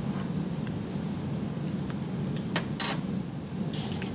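Steady low room hum with a few sharp clicks close together, the loudest a bit under three seconds in, and a short hiss near the end.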